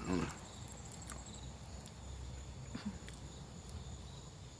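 Quiet chewing of a spicy meat stick: a few faint mouth clicks over a low steady hum.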